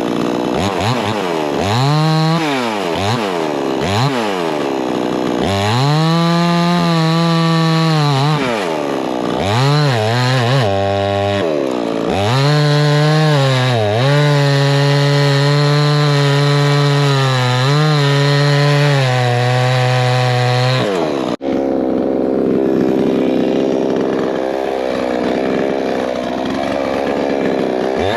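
Two-stroke gas chainsaw revved up and down several times, then held at high revs for long stretches. About 21 seconds in the sound breaks off for an instant, and afterwards the saw runs at lower, unsteady revs.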